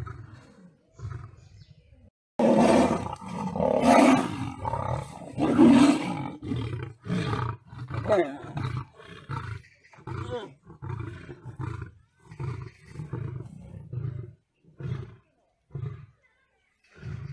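Big cats, lion and tiger, in a loud burst of snarling and roaring for about four seconds, followed by a long run of short, low grunting growls repeating about once or twice a second.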